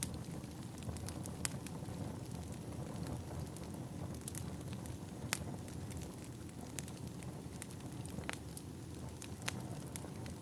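Wood fire burning: a steady low rumble of flames with irregular sharp crackles and pops from the burning firewood, the strongest pops near the start and about one and a half and five seconds in.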